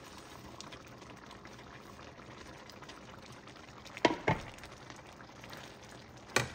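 Pork stew in green salsa simmering in a stainless steel pan, a steady soft bubbling, over low heat. A couple of sharp clinks about four seconds in and another near the end come from the slotted metal spoon knocking against the pan as the green onions are stirred in.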